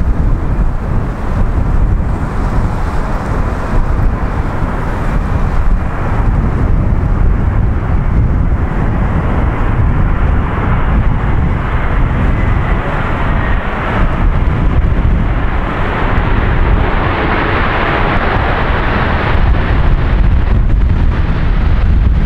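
Strong wind buffeting the microphone, with the engine noise of a jet airliner on approach building up over the second half and loudest near the end.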